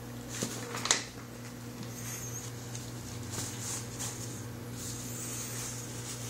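Kittens wrestling on carpet: soft scuffling and scratchy rustling, with a sharp thump about a second in, over a steady low hum.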